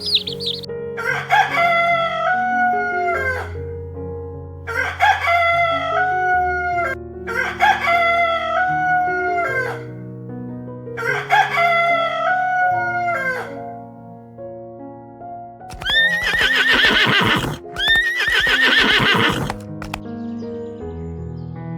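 A rooster crowing cock-a-doodle-doo four times, each crow about two seconds long with a stepped rise and fall in pitch. Two harsher, raspier animal calls follow near the end.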